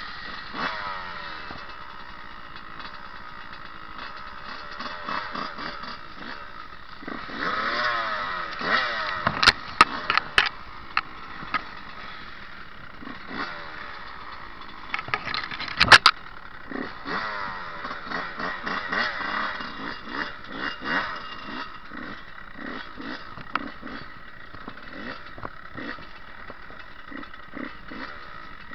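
Dirt bike engine revving up and down while riding a trail, with several sharp knocks about ten seconds in and again around sixteen seconds.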